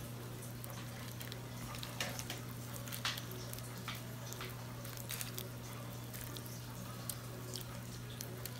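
Water poured slowly from a glass jar onto the soil of a plastic seedling tray: faint scattered drips and soft splats, a few louder ones about two and three seconds in, over a steady low hum.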